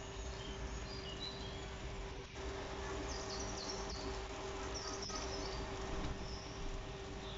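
Bhatura dough deep-frying in hot oil: a steady sizzle and bubbling, with a low steady hum under it and short bird chirps in the background.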